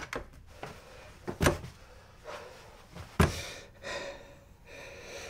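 A few dull thumps against a wooden door, the sharpest and loudest about three seconds in, with a man's gasping breaths in between.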